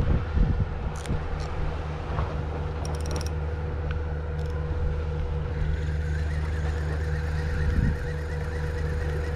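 Spinning reel (Penn Spinfisher VI 4500) being cranked to retrieve a spoon lure, with a fine repeating whirr that becomes clearer about halfway in, over a steady low, evenly pulsing drone. A few wind thumps hit the microphone at the start.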